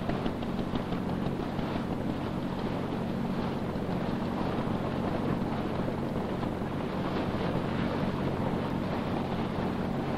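A boat's engine running with a steady hum, under wind and water noise.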